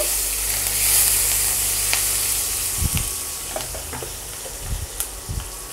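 Green chillies, curry leaves and whole spices sizzling in hot oil in a tempering (vaghar), stirred at first with a silicone spatula in a non-stick kadai. The sizzle fades gradually, with a few light ticks.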